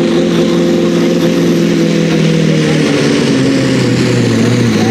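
Massey Ferguson pulling tractor's diesel engine running at full throttle while pulling a weight sled. Its pitch sinks from about three seconds in as the growing load drags the engine down, and it wavers near the end.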